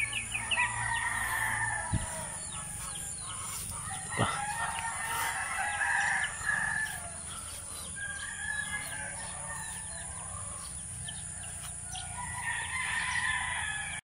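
Backyard native chickens clucking and a rooster crowing, with small birds chirping. Two sharp taps, about two and four seconds in.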